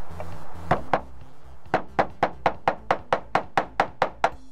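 A brief snatch of music, then a hammer striking as it nails a roofing slate to the roof deck: two knocks just before a second in, then a steady run of about a dozen quick hammer blows, roughly four or five a second.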